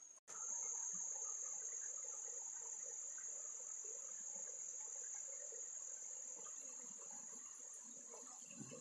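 A steady, high-pitched chorus of insects trilling, which comes in right after a brief dropout at the start.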